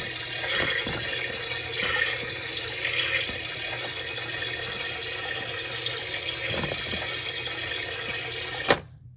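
Toy doll bathtub running water through a thin spout onto a plastic doll, a steady rush of water over a small motor's hum with a few splashes. It stops with a sharp click near the end as the water is switched off.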